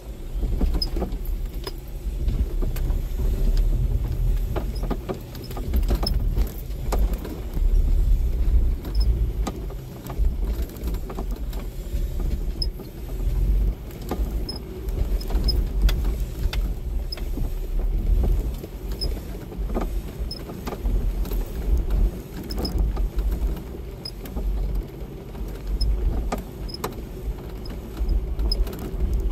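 Jeep Wrangler driving over a rough dirt trail, heard from inside the cab: a steady low rumble of engine and tyres, with frequent knocks and rattles as it bounces over the uneven ground.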